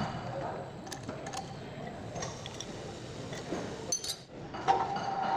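Scattered metallic clinks and clicks of steel against a metal lathe's three-jaw chuck as a round bar is clamped in its jaws. Near the end the lathe's motor starts and runs with a steady hum.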